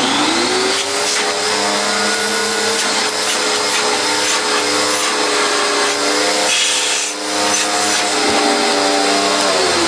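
Panasonic MC-E42N upright bagged vacuum cleaner's 650-watt motor running and drawing air through the open hose. A steady whine over a hiss, climbing in pitch in the first second and falling away near the end.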